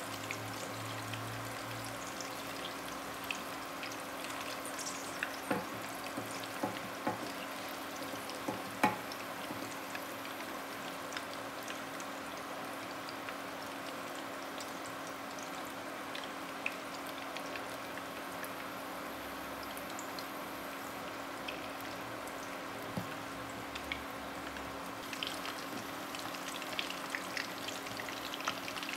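Martabak telur shallow-frying in oil in a non-stick pan: steady sizzling with scattered sharp pops and crackles. A steady low hum runs underneath.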